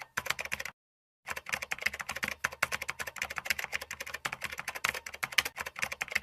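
Rapid keyboard typing sound effect, a fast clatter of keystrokes; it breaks off for about half a second about a second in, then runs on.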